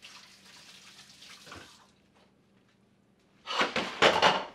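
Kitchen tap running: a faint hiss of water for the first two seconds, then a loud, rough gush of about a second near the end.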